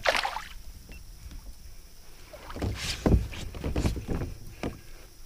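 Water splashing and sloshing at the side of a fishing kayak in a few short surges, as a small hooked chain pickerel is reeled in to the hull.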